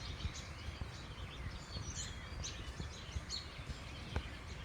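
Several backyard songbirds chirping in short, high calls, scattered and overlapping, over a steady low background rumble.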